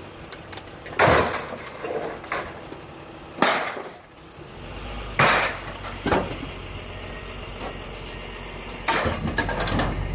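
Pieces of scrap metal thrown onto a pile, five loud clattering crashes a second or two apart. A steady low engine hum comes in about halfway through.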